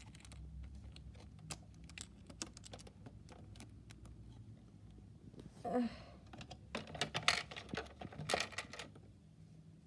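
Light clicks and taps of a plastic doll and toy dishes being handled, scattered and thickest a little after halfway, with a short pitched sound about six seconds in.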